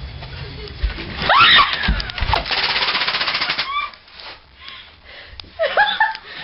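A Nerf blaster firing full-auto: a rapid, even rattle of shots lasting about a second, just after a shout. Short yelps and cries follow.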